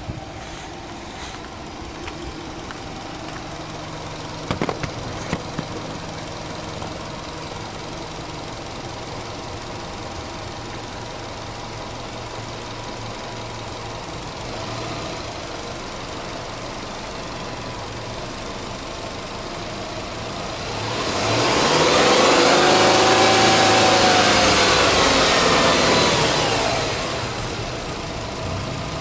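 Subaru Legacy 2.0GT spec B's EJ20 turbocharged flat-four idling steadily, then free-revved once about twenty seconds in: the pitch climbs, holds high for a few seconds and falls back to idle. A few light clicks about four seconds in.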